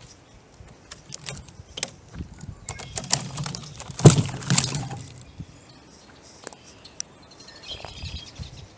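Dry bark and wood debris rustling and knocking against a wooden garden cart as it is handled, with one sharp knock and a burst of rustling about four seconds in.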